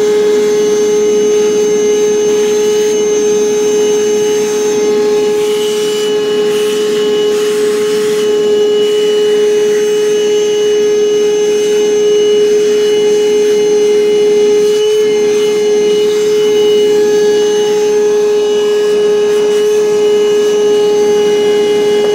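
Milwaukee M18 cordless wet/dry vacuum running at full speed with a steady, loud, high-pitched motor whine while its nozzle sucks up metal shavings.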